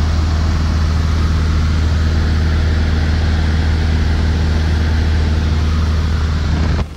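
Light aircraft's piston engine and propeller heard inside the cabin: a loud, steady drone with a deep hum, which drops away sharply just before the end.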